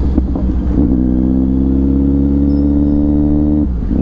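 Kawasaki Z900's inline-four engine, loud through a full-system Arrow exhaust with the catalytic converter cut out, running under steady throttle at around 40 km/h. Its note rises slowly, then dips briefly near the end before picking up again.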